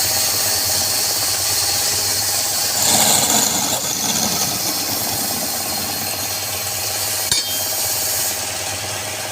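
Wood lathe running with a steady motor hum. About three seconds in, a louder, noisier stretch lasts a second or two, and a single sharp click comes near the end.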